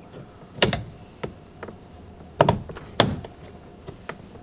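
Plastic interior door-handle trim on a Ford F-150 door panel being pried loose, giving sharp clicks and knocks: three louder snaps, about two-thirds of a second in, near two and a half seconds, and just after three seconds, with a couple of fainter ticks between.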